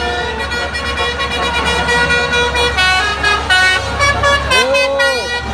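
Tour bus's telolet basuri musical horn playing a melody of held notes, the notes coming quicker in the second half, with one note swooping up and back down near the end.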